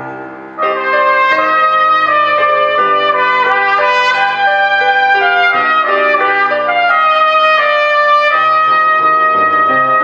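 Cornet playing a solo melody of held, changing notes, loud and bright. There is a brief dip about half a second in before it comes back in strongly.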